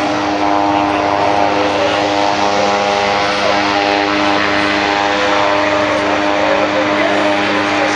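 Military aircraft turbine engines running steadily: a continuous drone with several held tones over broad engine noise.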